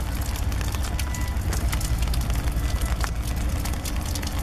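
CSX GE Evolution-series diesel locomotives rolling slowly past, their engines giving a steady low rumble. Scattered clicks and a few brief high squeals of the wheels on the rails run over it.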